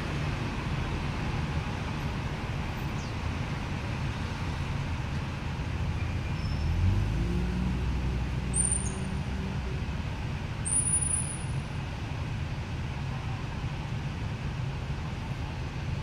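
Steady background rumble of road traffic, with a vehicle engine rising in pitch about seven seconds in. Two short high squeaks stand out near the middle.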